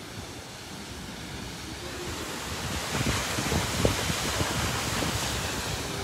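Wind rushing over the microphone, growing louder about two seconds in and then buffeting it in irregular low gusts.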